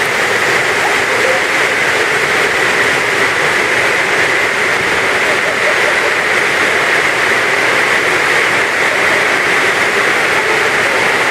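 Heavy rain pouring down in a steady, loud, unbroken rush, with faint voices under it.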